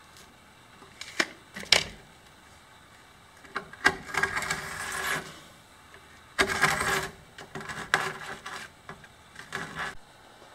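Sharp clicks and short bursts of gritty scraping as a flat steel hand tool works against a rough pebble-aggregate slab.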